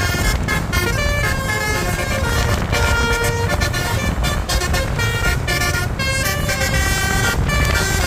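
Bus 'telolet' basuri horn sounding a melody of short, quickly changing tones, over a steady low rumble of traffic.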